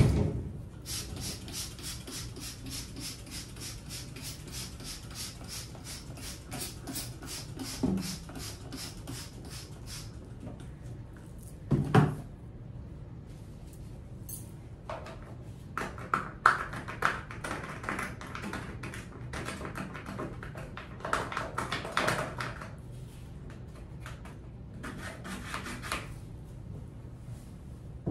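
Trigger spray bottle squeezed over and over, about four sprays a second for roughly nine seconds. Then a thump, followed by irregular rubbing and scrubbing noises with a few knocks.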